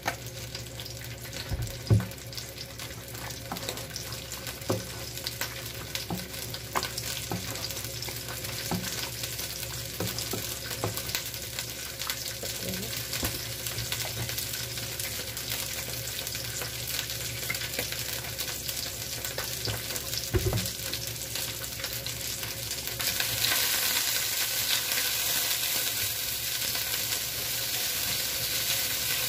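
Food sizzling as it fries in a pan, with scattered knocks and clicks of a spatula. The sizzle grows louder for the last six seconds or so.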